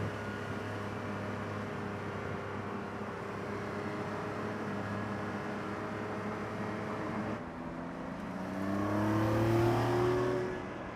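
Porsche 911 Carrera T's twin-turbo flat-six engine running at a steady pitch while the car drives. About eight and a half seconds in, it accelerates with the engine note rising, then fades near the end.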